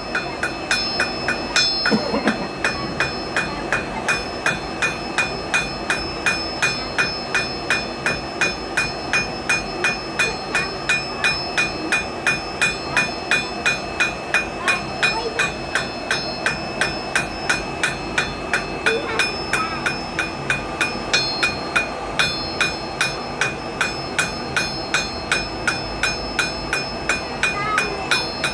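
Blacksmith's hammer striking hot steel on an anvil in a steady rhythm of about three blows a second, with a ringing tone running under the blows. The smith is drawing a standard 8mm round bar down to a tapered point and texturing it with the blows.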